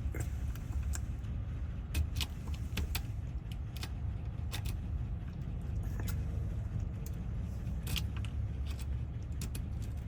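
Irregular sharp metallic clicks and ticks of a key being worked into a car door lock cylinder whose wafers are corroded, so the key does not go all the way in, over a steady low hum.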